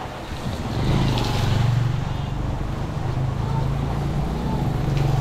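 A motor vehicle engine running close by, growing louder about a second in and then holding steady, over the steady hiss of heavy rain.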